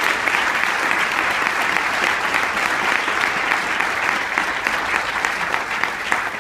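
Audience applauding steadily, the clapping beginning to thin into more separate claps near the end.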